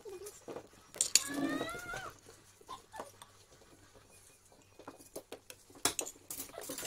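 Metal spoon clinking and scraping on a plate while spreading chilli sauce over chicken, with sharp clinks about a second in and near the end. A cat meows once, a drawn-out call, about a second in.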